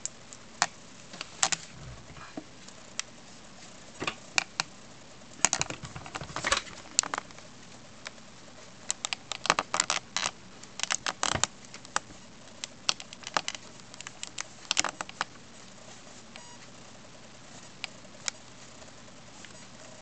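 Handling noise from a handheld compact camera: irregular sharp clicks and taps, some in quick runs, over a steady faint hiss. The clicks come thickest in the middle and thin out near the end.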